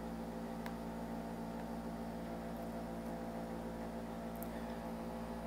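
Steady low electrical hum with a faint hiss, the background noise of the recording setup, with a faint click about two-thirds of a second in.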